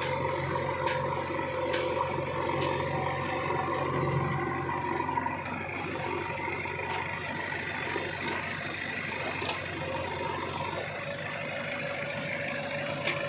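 JCB 3DX backhoe loader's diesel engine running steadily while the machine works, with a few short metallic clanks scattered through.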